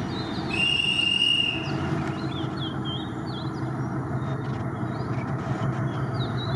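Diesel locomotive engine running steadily with a low drone, while birds chirp repeatedly. A brief high steady tone sounds about half a second in and lasts just over a second.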